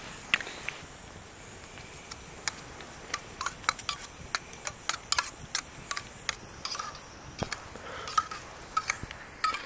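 A metal spoon or ladle clinking and scraping against a cooking pot as food is stirred: many short, sharp, irregular clicks.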